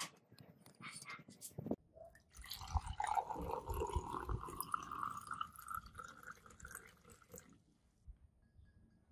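A few light clicks and scrapes of a brush working a small metal model in a metal tin. Then liquid is poured into a glass tumbler, its splashing pitch rising steadily as the glass fills, until the pouring stops.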